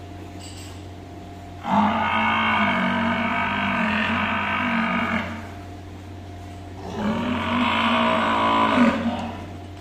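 Water buffalo calling: two long, loud moos, the first about three and a half seconds and the second about two seconds, over a steady low hum.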